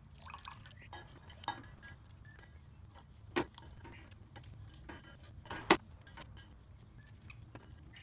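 Ice cubes being twisted out of a plastic ice-cube tray and dropped into a stainless-steel tumbler: a few sharp clinks, the loudest about three and a half and five and a half seconds in, with faint crackling of the plastic tray between them.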